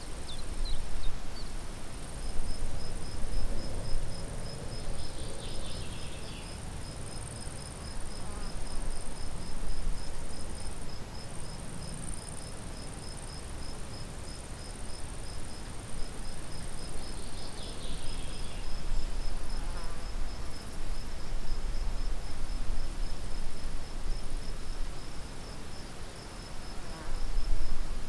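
Crickets chirping in meadow grass: a rapid, even pulsing trill and a steady high buzz that both run on without a break, over a low, uneven rumble.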